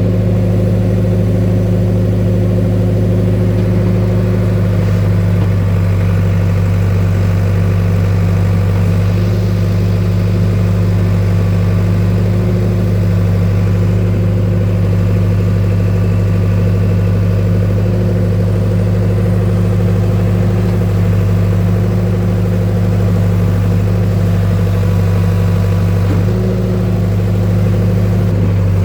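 Tractor backhoe's engine running at a steady speed while digging, with a brief change in its note near the end.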